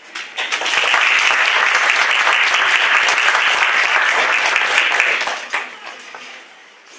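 A small audience applauding, about five seconds of hand-clapping that dies away near the end.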